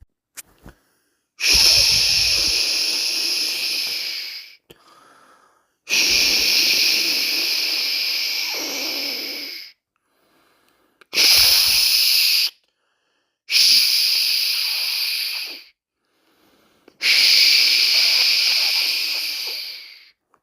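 A person shushing close to the microphone: five long "shhh" sounds, each starting loud and fading away, with short silent pauses between them. This is shushing as white noise to soothe a baby to sleep.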